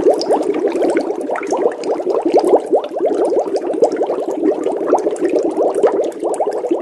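Water bubbling steadily: a dense, continuous stream of small bubbles rising and popping, each a quick upward-gliding blip.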